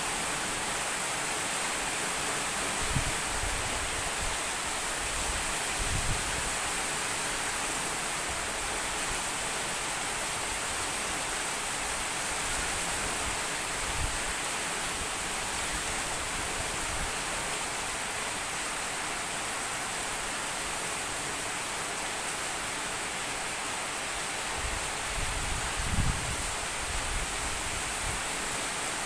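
Heavy rain falling steadily, an even hiss, with a few soft low thumps here and there.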